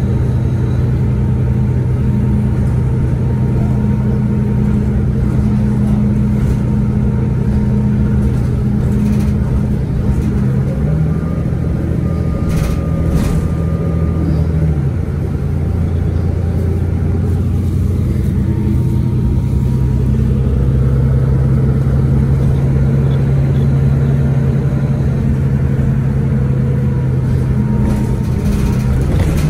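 2011 Orion VII 3G bus's Cummins ISL9 diesel engine running steadily. Its pitch steps up a little about eleven seconds in and drops back about four seconds later.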